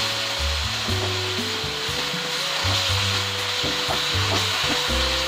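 Chicken and sliced vegetables sizzling in a wok as a spatula stirs and scrapes them around, under background music with a held melody note and a bass line that changes note every second or so.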